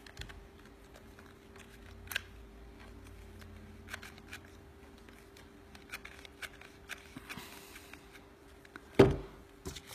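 Small clicks and paper rustles from working a hot glue gun over a cardstock paper flower, with one sharp knock about nine seconds in, the loudest sound. A faint steady hum runs underneath.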